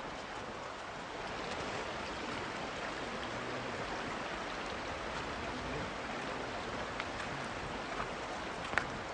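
Steady rushing of a shallow stream running over a stony gorge riverbed, with a few sharp clicks near the end.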